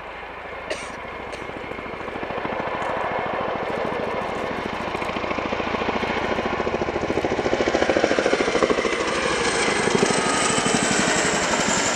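Boeing Chinook HC6A's tandem rotors making heavy blade slap in a low, fast pass: a rapid, steady beat that grows louder as the helicopter closes in, with a high turbine whine that slides slightly down in pitch in the second half.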